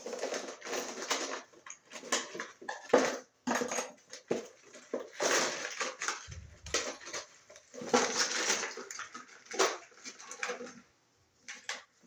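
Copper electrical wires and hand tools being handled: irregular scraping and rustling broken by clicks, with one sharp click about three seconds in.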